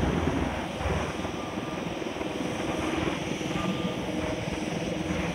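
An engine running with a steady low drone, overlaid by a noisy hiss.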